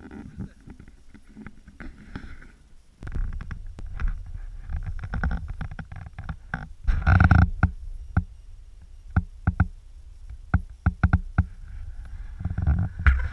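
Low rumble of wind and handling noise on a pole-mounted camera's microphone, starting about three seconds in, with knocks and scrapes from cross-country skis and a ski pole on snow. The loudest knocks come near the middle, followed by a run of quick clicks.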